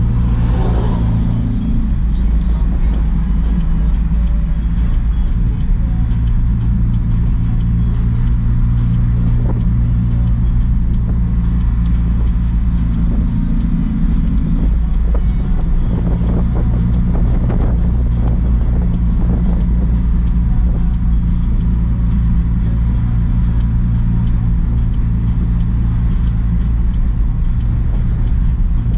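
A JAC truck's engine running under way, a steady low drone with road noise. The engine note shifts about halfway through.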